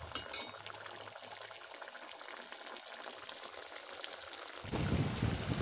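Thick green curry-leaf gravy with fish simmering in a metal kadai: a soft, steady sizzle and crackle of small bubbles bursting. A spatula clicks against the pan a few times at the start, and a louder low rumble comes in near the end.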